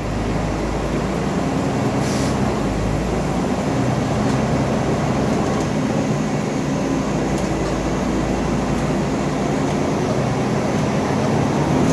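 Scania East Lancs OmniDekka double-decker bus under way, heard from inside the lower deck: a steady engine hum with road and body noise.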